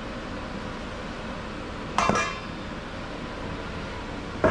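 A chile being turned in flour in a stainless steel mixing bowl, with the bowl clinking and ringing briefly about two seconds in, over a steady background hiss.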